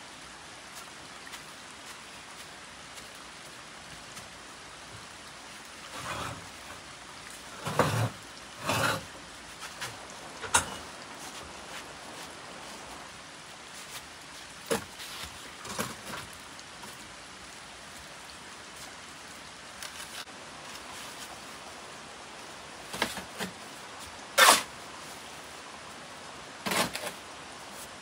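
Scattered short knocks and scrapes, about a dozen over the stretch, the loudest a sharp hit near the end, over a steady hiss of background noise.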